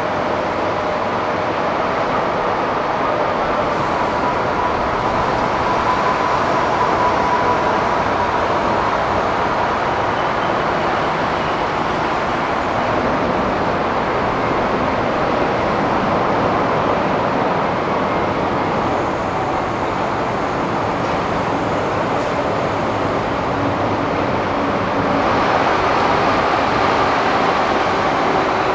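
Steady jet aircraft noise across the airport apron, with a faint high whine that comes and goes and a slight swell near the end.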